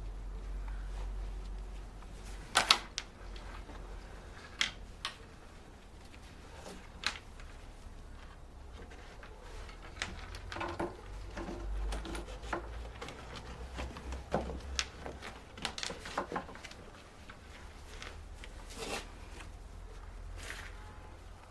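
Irregular clicks and knocks of hard plastic parts being handled while the air filter housing on a Peugeot 407 2.0 HDI is worked on, the sharpest knocks a few seconds in, over a low rumble.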